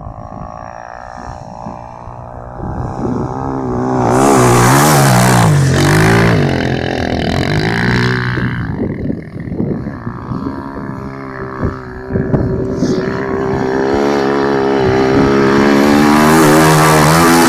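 ATV engine revving, its pitch climbing and dropping again and again as the throttle is worked, louder from about four seconds in and again near the end, where a rushing noise joins it.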